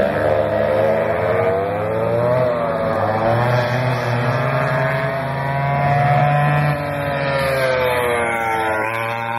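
Vintage 1960s racing karts with twin rear-mounted two-stroke engines running at high revs as they pass, more than one kart heard at once. The engine pitch rises and falls, dips briefly near the end, then climbs again.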